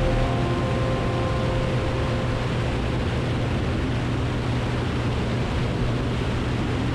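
Cessna 185 floatplane in cruise heard from inside the cabin: a steady engine and propeller drone with a constant low hum under a broad rush of airflow. Faint steady higher tones sit on top during the first few seconds.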